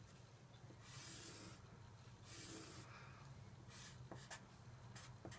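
Black permanent marker drawing on paper: two faint, scratchy strokes of about half a second each, about one and two and a half seconds in, followed by a few light ticks of the tip.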